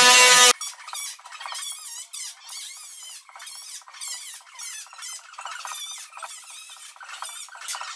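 A power tool's steady whine stops abruptly about half a second in. It is followed by fast, high-pitched squeaky chatter with no low end, typical of audio from a sped-up time-lapse of the work.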